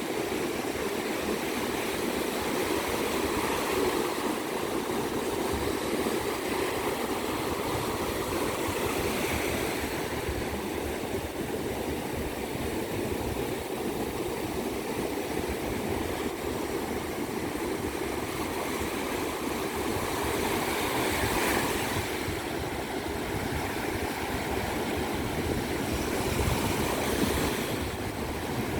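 Ocean surf washing steadily onto a beach as a continuous hiss, swelling louder twice toward the end as waves break.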